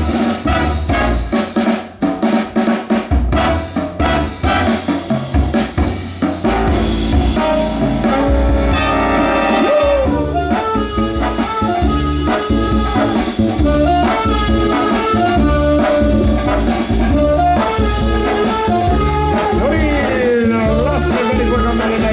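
Big band playing: drum kit with snare and rimshot hits leads for the first six seconds or so, then the brass section comes in over bass and drums, with a couple of sliding brass notes.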